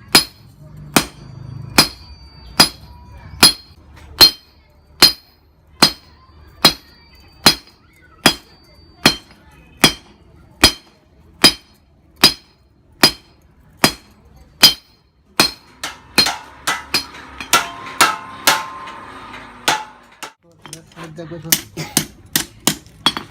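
Blacksmith's hand hammer striking a hot steel flat bar on an anvil, with steady blows about one every 0.8 seconds. After about 15 seconds the blows speed up and ring more. After a short pause, a quick run of lighter taps follows near the end.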